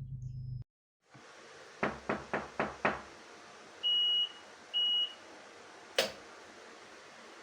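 A knock code of five quick knocks tapped onto a smart door lock prototype fitted with a piezoelectric knock sensor. It is followed by two short, even beeps from the lock's buzzer and then a single sharp click.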